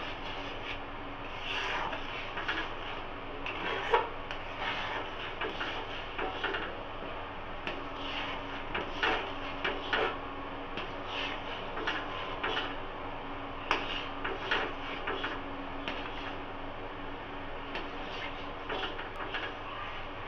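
Steel spatula scraping and stirring thick, sweetened reduced milk (kheer) in an aluminium kadai, in repeated irregular strokes against the bottom and sides of the pan.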